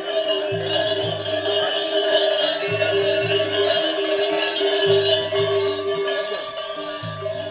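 Music with a held steady drone and a low bass figure that repeats about every two seconds.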